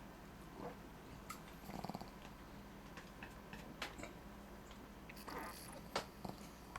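Shih Tzu snoring softly, with a short fluttering rasp about two seconds in and a breathy puff later on, amid several sharp small clicks, the loudest about six seconds in.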